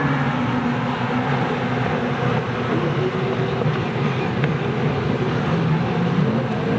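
A pack of racing jet skis running hard as they pull away from a beach start. Several engine tones overlap, slowly rising and falling, over a steady wash of engine noise.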